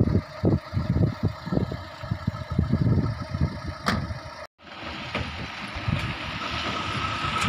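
Maruti Suzuki Zen hatchback's engine running as the car moves off on a dirt road, with uneven low thumps in the first half and a brief break about halfway, after which the engine and road noise grow steadier and louder.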